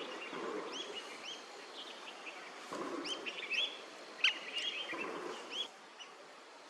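Birds chirping: short, clear notes that rise and fall, in loose clusters, stopping near the end. A thin steady high tone runs faintly behind them.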